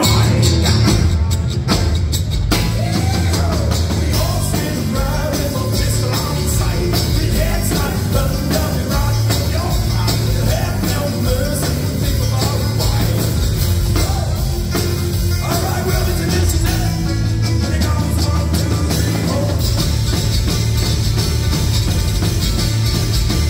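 Live thrash-grass band, a blend of thrash metal and bluegrass, playing loudly and without a break: drum kit, electric bass, guitar and banjo, with a man singing.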